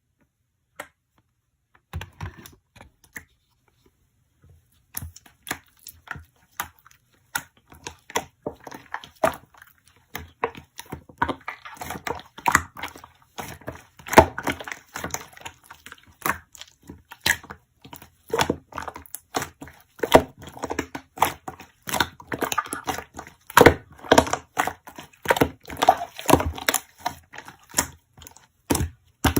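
Slime being squished and pressed by hand, giving a crackling run of small pops and clicks. It starts sparse a couple of seconds in and grows dense and busy from about five seconds on.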